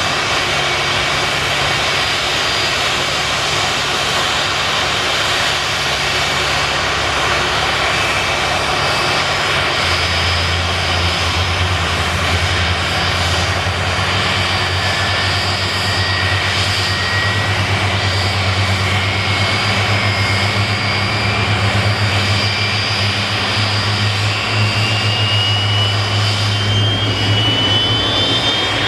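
Boeing 747-400's Rolls-Royce RB211 turbofan engines running as a steady broad noise with a low hum; from about halfway through, a thin whine climbs steadily in pitch as another engine spools up during its start.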